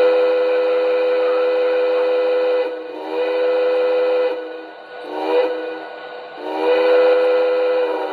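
Electronic steam whistle of a Lionel blue Commodore Vanderbilt O-scale model locomotive, a multi-note chord from its sound system. It is blown long, long, short, long, the grade-crossing whistle pattern.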